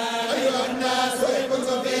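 Group of men reciting the Quran in unison in the Moroccan collective hizb style, drawing out long, held melodic notes with slight bends in pitch.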